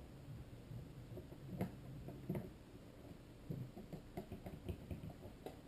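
Faint, irregular clicks and small scrapes of a screwdriver driving small screws into a plastic instrument cluster housing.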